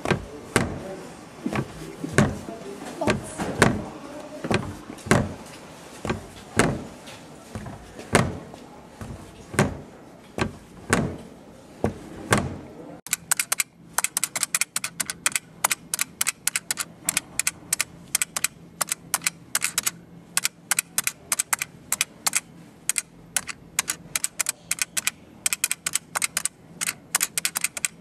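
Sharp knocks or claps about once a second, then, after an abrupt change about halfway through, a fast run of light clicks, several a second, like typing.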